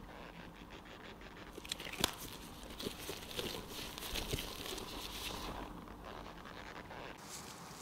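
Steamed glutinous rice (mochi) dough being stretched and folded by hands in disposable plastic gloves, worked until elastic. There are soft sticky pulls, small tacky pops and crinkling of the gloves, with one sharp click about two seconds in.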